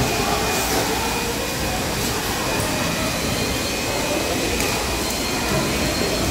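Steady machinery drone, an even whooshing noise with a thin high whine running through it and a few faint clatters.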